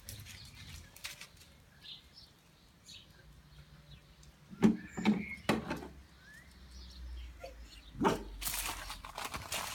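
Outdoor ambience with a faint bird chirp, a few short sharp knocks about five seconds in and again near eight seconds, then a rustling noise near the end.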